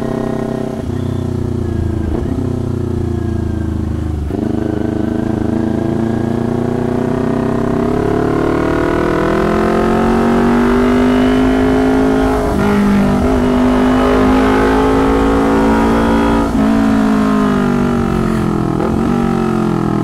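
2019 Kawasaki Ninja 250's parallel-twin engine on the move through a very loud custom tin-can exhaust. The pitch climbs and falls with the throttle and breaks sharply about four, twelve and a half and sixteen and a half seconds in.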